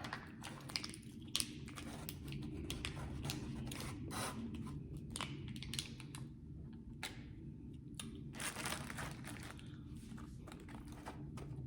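Paper and plastic food packaging being handled, crinkling and tearing in a run of short, irregular rustles and crackles.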